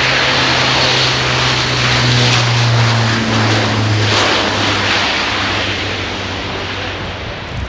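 Airbus A400M Atlas taking off. Its four Europrop TP400-D6 turboprops are at full power, giving a loud, steady propeller drone with a low hum. The hum drops slightly in pitch midway as the aircraft passes, then the sound fades gradually.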